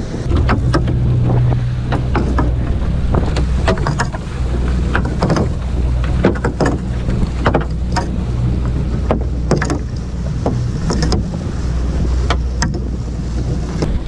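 A small open boat's motor running steadily underway in choppy sea, with many short sharp knocks and slaps as a gill net is paid out over the gunwale.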